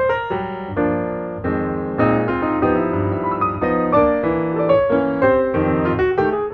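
Background piano music: a run of struck notes and chords at a moderate pace.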